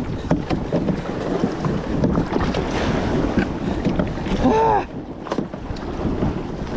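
Wind buffeting the microphone and waves sloshing against a kayak, with many small knocks throughout. A short pitched sound rises and falls about four and a half seconds in.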